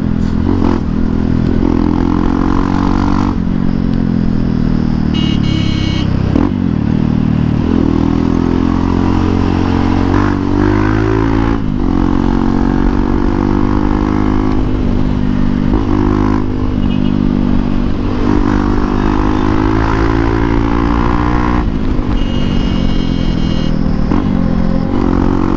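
Hero Xpulse 200 single-cylinder engine running through a Norifumi Noctus T5 aftermarket exhaust while riding. Its pitch rises and falls with the throttle and drops sharply several times, as at gear changes or when the throttle closes.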